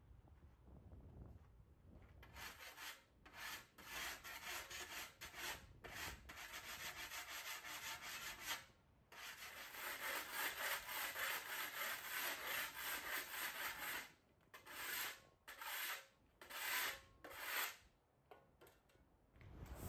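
A long-handled flat scraper rasping across a concrete floor in quick repeated strokes. It starts a couple of seconds in and runs almost continuously, then breaks into shorter separate strokes near the end.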